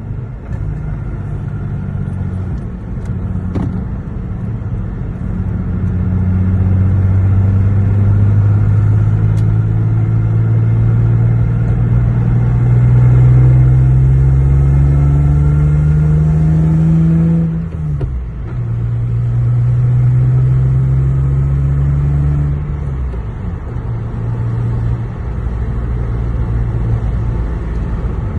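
Lexus GS 300's 2JZ-GE straight-six pulling hard through the gears of its swapped-in ZF manual gearbox. The engine note rises steadily for about ten seconds, falls suddenly at a gear change about 18 seconds in, climbs again for a few seconds, then settles to a steadier, lower drone.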